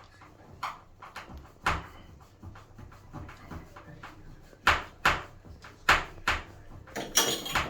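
Irregular knocks and clicks of shower outlet fittings and wall-mount parts being handled and fitted, with a short scraping rustle near the end.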